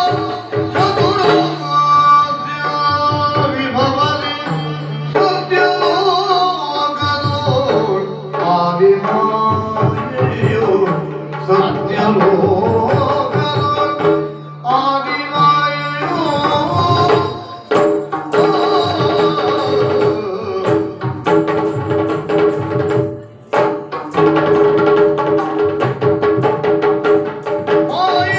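Yakshagana ensemble music: a singer's voice over hand drums playing a steady rhythm, with a sustained low tone underneath.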